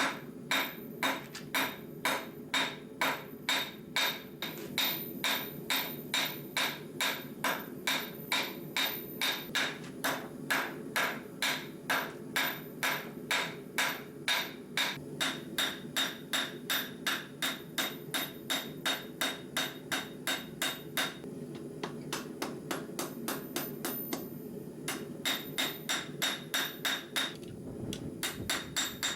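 Hammer striking 1/2-inch rebar on an anvil in a steady rhythm of about three blows a second, flattening the end of the bar into stock for a fork. A few blows are lighter about three-quarters of the way through.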